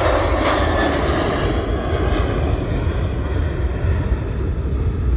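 Boeing 737 jet engines at takeoff thrust as the airliner climbs away just after lift-off: a loud, steady rushing engine noise with a deep rumble that grows duller and slowly fades as the plane departs.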